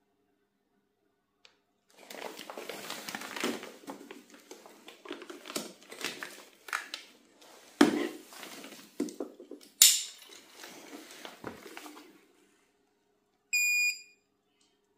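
Irregular rustling, clicking and knocking of hard objects being handled for about ten seconds, with two sharp knocks standing out, then one short electronic beep lasting about half a second.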